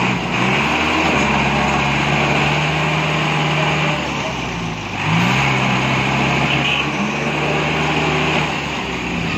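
Cargo truck's engine revved and held high as it tries to drive out with its rear wheels bogged in mud. It eases off about halfway, revs up again, and drops back near the end.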